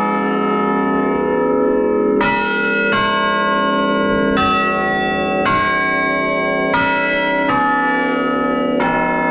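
Chime of tower bells played as a slow tune, heard close up from inside the belfry: about seven strokes, each bell ringing on long and overlapping the next.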